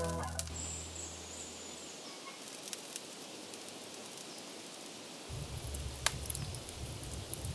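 Background music fading out at the start, then a quiet outdoor hiss. About five seconds in, a wood campfire takes over with a low rumble and a few sharp pops of burning wood.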